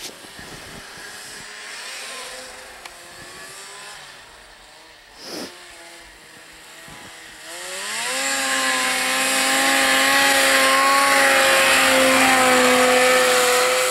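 Arctic Cat ZR 600 snowmobile's two-stroke twin engine, faint at first, then rising in pitch and getting loud about eight seconds in as the sled comes up at speed and runs past close by, holding a steady high note.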